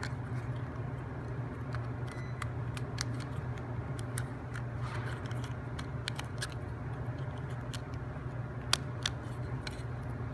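Scattered light clicks and taps of plywood model-kit parts being handled and seated in place, over a steady low hum. The sharpest click comes near the end.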